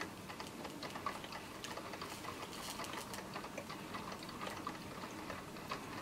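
AICOK 12-cup drip coffee maker starting to brew: faint, irregular ticking and crackling as its heater begins to warm the water.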